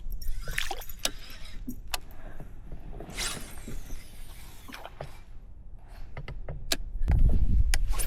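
Handling sounds on a fishing kayak: scattered clicks and knocks, with a couple of brief swishes of water. About seven seconds in, a louder low rumble sets in.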